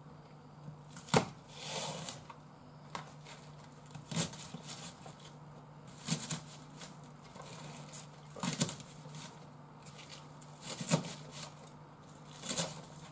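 Kitchen knife cutting through a Japanese long onion (negi) on a cutting board: each stroke gives a short crunch and a sharp knock of the blade on the board, about eight cuts at irregular intervals of one to two seconds. A faint steady hum runs underneath.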